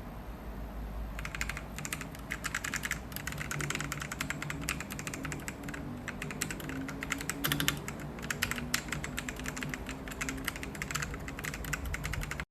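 Fast, continuous typing on a DEKAY98 Pro mechanical keyboard, a dense stream of key clicks starting about a second in.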